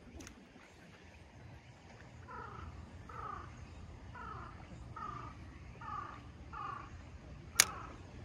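An animal calling over and over, about eight short falling calls roughly a second apart, with a low steady rumble underneath. A single sharp click comes near the end.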